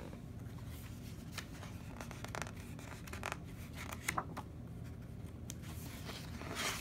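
Pages of a picture book being handled and turned: scattered soft paper rustles and light scrapes, with a louder page swish near the end.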